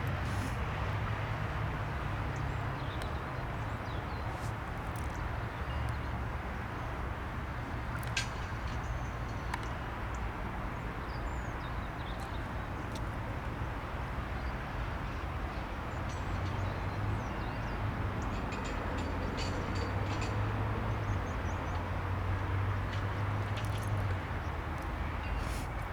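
Steady low rumble of an Airbus A319's jet engines running at low power on the ground, swelling slightly about two-thirds of the way through, with faint bird chirps above it.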